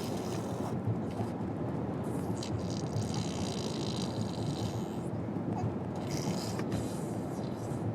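Steady road and engine noise inside a moving car's cabin, with a few short hissing, spluttering sounds a couple of seconds in and again near the end.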